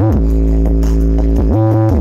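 Bass-heavy electronic dance music played very loud through a large Bintang Perkasa (BP) Audio sound-system speaker stack during a sound check. A deep bass runs under a synth line that bends up and down, and the bass drops out briefly about one and a half seconds in.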